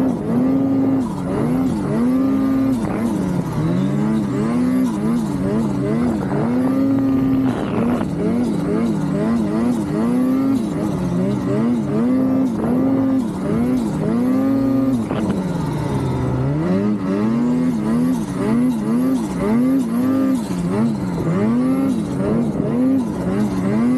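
Ski-Doo Summit Expert Turbo snowmobile's turbocharged two-stroke engine running hard as the sled is ridden through snow, revving up and dropping back again and again as the throttle is worked. The sled is new and still in its break-in miles.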